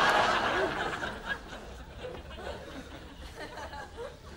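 Studio audience laughter dying away over the first second, followed by scattered chuckles from the audience.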